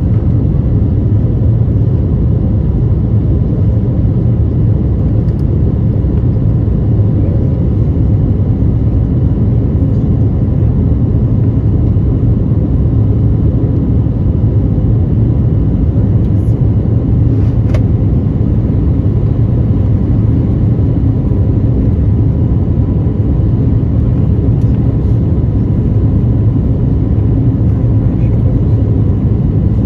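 Steady cabin rumble of an Airbus A320neo climbing out: engine and airflow noise heard from inside the passenger cabin, with a faint steady tone and a single click about two-thirds of the way through.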